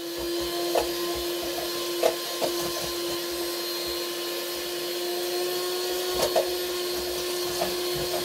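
Handheld electric mixer running steadily with a constant hum as its beaters whisk batter in a bowl, the beaters knocking against the bowl a few times.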